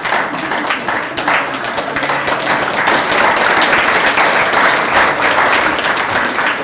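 An audience applauding: many people clapping together in a dense, steady applause.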